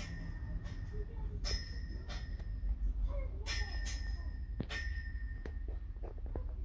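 Short bell-like dings, about seven of them at irregular intervals of roughly a second, each a small click followed by a clear tone that rings briefly and fades, over a steady low hum.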